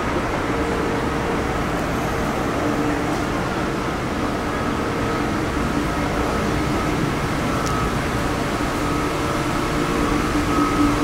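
A Seagrave ladder truck's diesel engine idling steadily: an even drone with a faint, unchanging hum over it.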